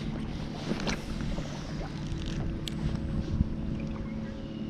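Wind buffeting the microphone and choppy water lapping against a kayak's hull, with a short swish about a second in and a few light clicks and knocks in the second half.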